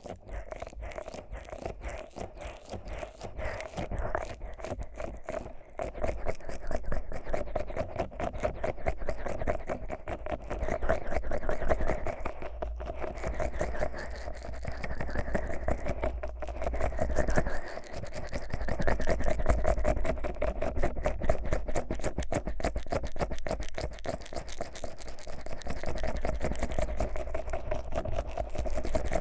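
Fingers rubbing thick, sticky Vaseline over a 3Dio binaural microphone's silicone ear, close on the mic: a dense, continuous run of tiny rapid crackles and rubbing, swelling and easing in waves.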